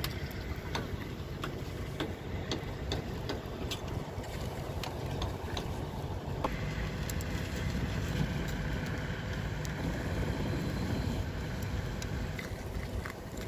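Truck engines running at a distance, a steady low drone, with scattered sharp clicks over the first few seconds.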